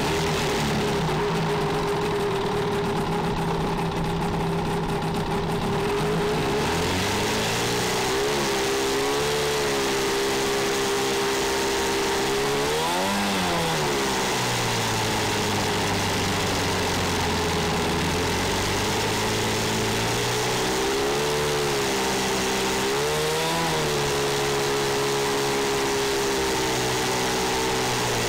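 Open-wheel race car engine idling at close range, with a few short throttle blips and one quick rev that rises and falls about halfway through.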